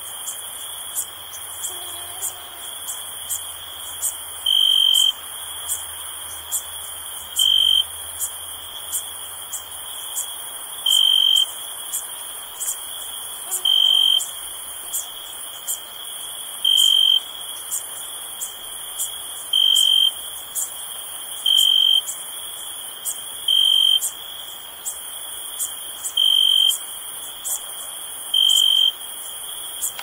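Crickets chirping: a steady high trill with a much louder chirp every two to three seconds, over frequent faint, sharp high ticks.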